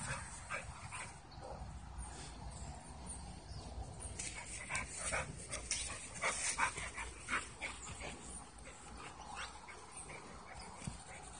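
Pit bull giving a string of short, sharp barks, bunched together about halfway through.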